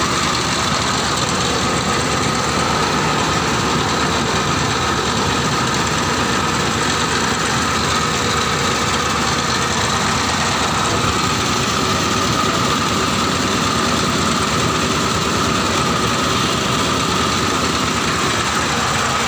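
Diskmill 45 disk-mill grinding machine with modified steel-toothed blades running steadily at full speed, milling material into fine powder. A loud, even, unbroken mechanical noise with no change in pace.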